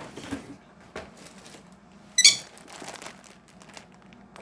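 Light rustling and crinkling of things being handled, with one short, sharp squawk from a pet bird about two seconds in, the loudest sound.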